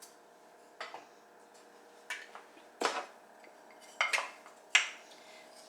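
Several separate clinks and knocks of kitchen utensils and containers, one every second or so, with the sharpest clink near the end.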